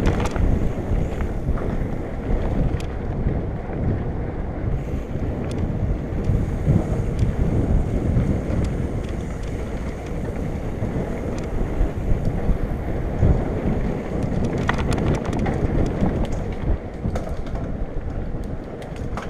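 Wind buffeting a GoPro's microphone on a moving mountain bike, with a steady low rumble of tyres and bike over dirt trail. Scattered clicks and rattles, a cluster of them near the end.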